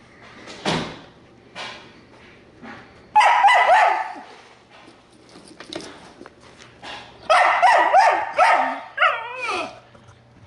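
Kennelled dog yelping and barking in high-pitched bursts: a run of yelps about three seconds in, another about seven seconds in, then a whine falling in pitch near the end.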